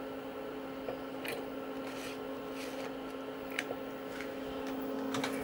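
Steady hum from the running IBM 5155 portable PC, with a few faint clicks and ticks as the external 5.25-inch floppy drive sitting on top of it is handled.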